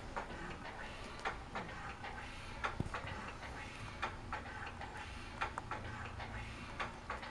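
Light, sharp clicks at uneven intervals, roughly one to two a second, over a low steady hum.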